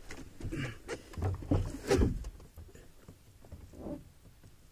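Lake water sloshing and splashing against the side of a canoe, with knocks on the hull, as a bass is held in the water at the gunwale. The knocks and splashes cluster in the first two seconds, the loudest a sharp knock about two seconds in, with one smaller one near the end.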